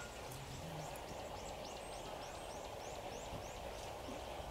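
A bird calling a quick run of short, high, falling notes, about four a second, over steady outdoor background noise.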